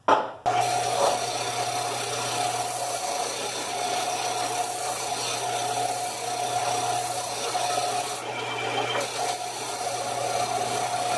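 A small 1x30 belt sander switched on with a click, its motor running up and humming steadily about half a second in, while a briar block is pressed against the belt to square up its sides: a steady grinding, rasping wood-sanding sound. The grinding briefly thins out about eight seconds in.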